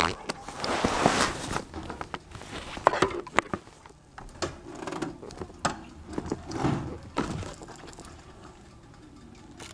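Handling noise on the camera: fabric rustling and scraping with a string of sharp clicks and knocks against the mount, settling down about two seconds before the end.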